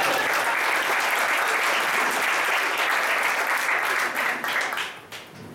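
Small theatre audience applauding, the clapping dying away near the end.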